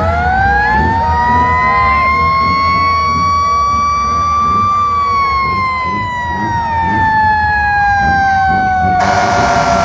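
Fire truck siren winding up in pitch over the first couple of seconds, holding a wail, then slowly falling, with a second, lower siren tone falling underneath and the low rumble of vehicles. A short, harsh blast sounds near the end.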